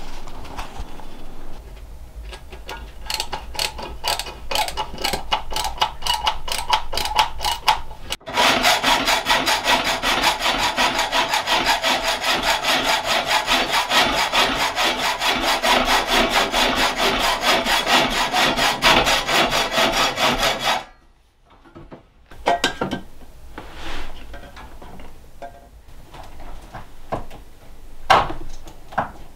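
Hand hacksaw cutting plumbing pipe in fast, even back-and-forth strokes. The strokes are lighter at first, then steady and louder from about a quarter of the way in, and they stop about two-thirds through. A few scattered knocks and clicks of handling follow.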